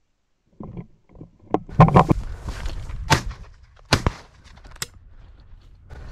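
Shotgun shots from a Fabarm Axis: several sharp reports, the loudest about two seconds in and then single cracks roughly a second apart around three, four and five seconds, with rustling and handling noise between them.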